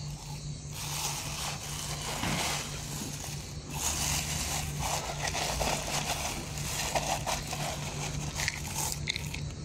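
Plastic bag rustling and crinkling as a plastic cup scoops dry cat food from it, the kibble rattling, starting about a second in.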